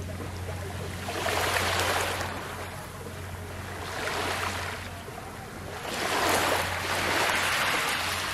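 Small, gentle waves washing up a pebble and coral-rubble shore, swelling and fading three times: about a second in, around four seconds, and from about six seconds to near the end. A steady low hum runs underneath.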